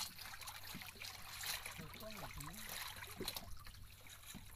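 Water lapping and trickling along the hull of a wooden fishing boat at sea, over a low steady hum, with a faint voice about two seconds in.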